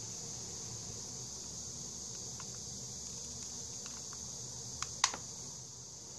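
Small hard clicks and taps from handling a hot glue gun and a paper-wrapped plastic bottle cap: a few faint ones, then sharper clicks about five seconds in. Under them is a steady high-pitched background noise.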